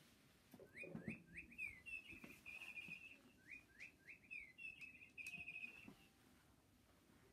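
Faint birdlike chirping: two matching phrases, each a run of quick rising chirps that runs into a trill. Soft thumps of handling come about a second in.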